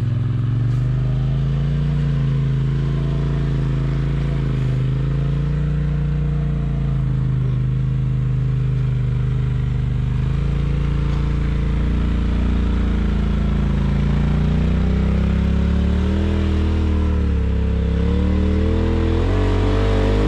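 Side-by-side UTV engine pulling hard under load as the machine climbs a steep slickrock face, its pitch rising and falling with the throttle. The revs climb higher near the end.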